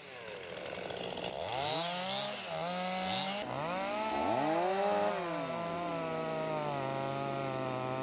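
Two-stroke chainsaws revving up and down several times, then held at a steady high speed while the bar cuts through a felled conifer trunk.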